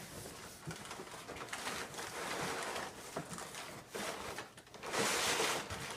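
Packing paper rustling and crinkling in irregular bursts, loudest about five seconds in.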